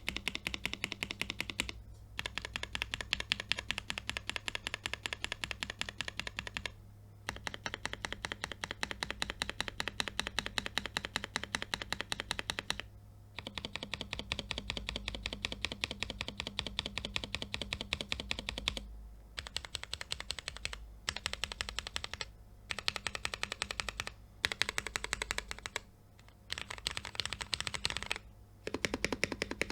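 Fast, continuous typing on a mechanical keyboard with Cherry MX Black Hyperglide linear switches (lubed with Krytox 205g0, filmed, 62 g springs) under POM keycaps. The keystrokes come as dense clicks in runs of a few seconds, broken by short pauses.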